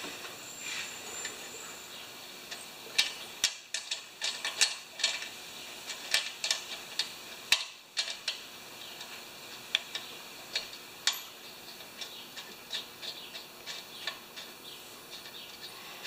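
Irregular light metallic clicks and taps of a screwdriver and small carburetor parts being handled as a lawn mower carburetor is put back together and its jet screwed in. A few sharper clicks fall between about three and eight seconds in.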